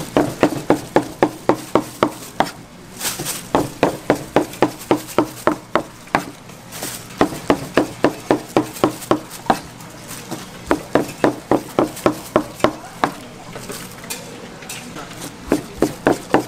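A kitchen knife chopping on a cutting board in quick, even runs of about four to five strokes a second, each run lasting two to three seconds with a short pause between.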